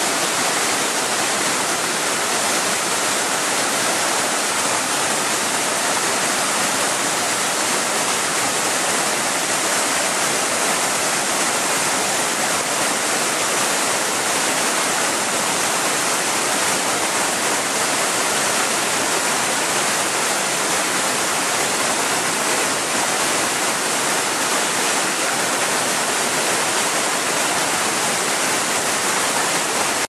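Whitewater mountain stream rushing over boulders: a loud, steady rush of water.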